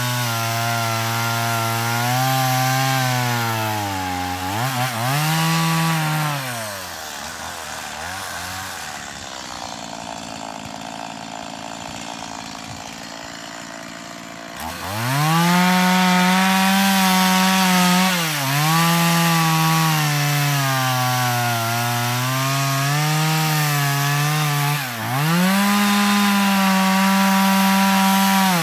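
Two-stroke chainsaw at full throttle cutting through a log, its engine pitch sagging and recovering as it bogs under load. About six seconds in it drops away to a quieter low level for some eight seconds, then revs sharply back up and cuts again, the pitch dipping every few seconds.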